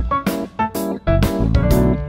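Background instrumental music: a quick run of notes over a low beat.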